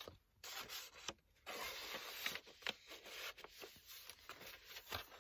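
Stiff paper pages and flaps of a handmade junk journal rubbing and rustling as they are turned over by hand: a short rustle, then a longer one from about a second and a half in.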